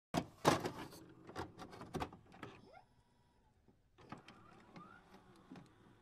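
Intro sound effects: a quick run of sharp clicks and knocks with short rising swoops, a brief gap about halfway, then softer clicks and another rising swoop.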